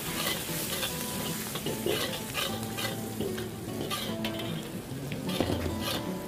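Chili bean paste, chopped chili, ginger and garlic sizzling in hot oil in a wok, stirred and scraped with a metal ladle that clicks against the pan again and again.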